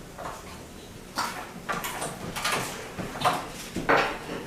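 About five short scrapes and rattles of parts being shifted inside a computer case as the motherboard is worked loose, the last one loudest.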